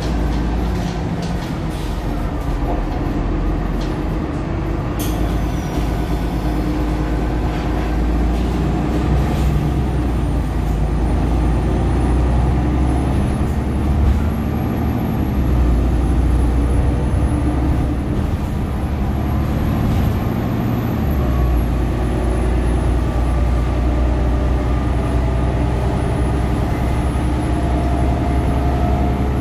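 Cummins L9 diesel engine and ZF EcoLife six-speed drivetrain of a 2021 Nova LFS transit bus running under way, heard inside the cabin near the rear-mounted engine, with road noise. The engine note shifts in pitch a few times, with a few clicks and rattles in the first seconds and a faint high whine from about a third of the way in.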